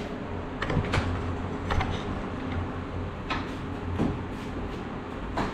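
Several short knocks and clanks of a coil spring and shock parts being handled and fitted, over a steady low hum.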